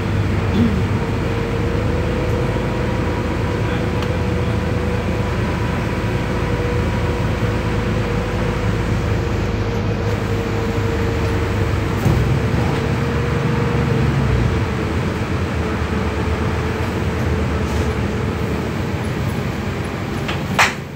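Cabin noise of a Solaris Urbino 12 IV city bus under way on a wet road: steady drivetrain rumble with a constant whine, and tyre hiss. A single sharp click comes near the end.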